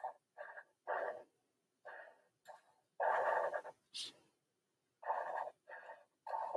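Black Sharpie marker stroking across paper: about ten short strokes with pauses between, one longer stroke about three seconds in, as the rungs and bracing of a ladder are inked.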